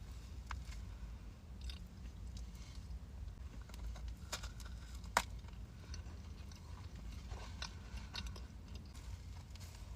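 Close-miked eating: a person biting and chewing a pastry, with small crisp crunches and wet clicks, and one sharper crunch about five seconds in.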